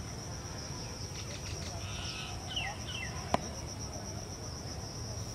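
Steady high-pitched drone of insects, with a few short bird chirps near the middle and a single sharp click a little over three seconds in.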